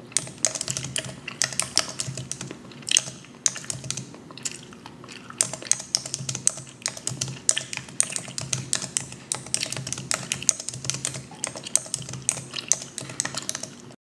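Fast, irregular typing on a slim low-profile computer keyboard, with long acrylic fingernails clicking on the keys; it cuts off abruptly at the end.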